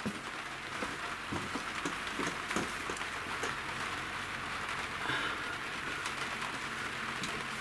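Rain pattering steadily on the tiny house's roof, heard from inside, with a few light taps scattered through it.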